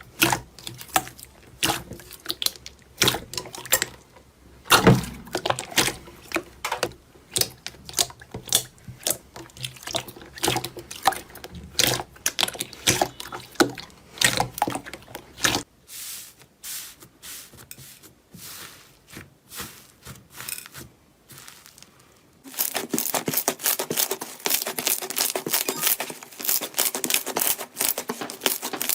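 Slime being squeezed and poked by hand, a rapid run of sticky pops and crackles. After a sparser, quieter patch in the middle, a denser, steady crackling begins about three quarters of the way through.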